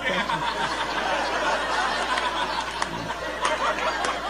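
A large audience laughing, a steady wash of many voices.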